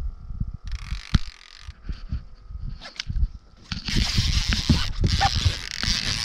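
Irregular knocks, clicks and rustling from handling a fishing rod and reel in a boat while a hooked musky is reeled in, with a steady hiss joining from about four seconds in.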